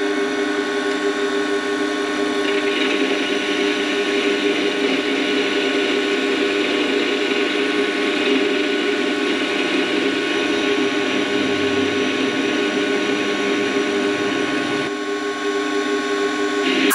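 Warco WM180 mini metal lathe running steadily at about 750 rpm, a steady machine whine, while a CCGT carbide insert takes a facing cut on a mild steel bar. A brighter hiss joins about two and a half seconds in.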